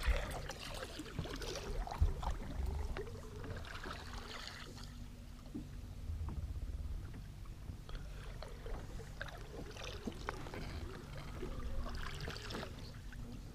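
Water lapping and sloshing against the side of a fishing boat, over a steady low rumble of wind on the microphone, with a few light knocks.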